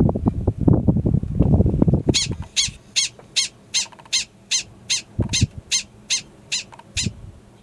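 Gunnison's prairie dog alarm calling: a fast run of about fifteen short, sharp high barks, about three a second, starting about two seconds in. Low rumbling noise fills the first two seconds, before the calls begin.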